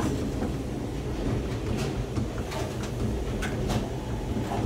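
St. Louis Gateway Arch tram capsule running along its track inside the arch, a steady low rumble with irregular clicks and rattles from the car.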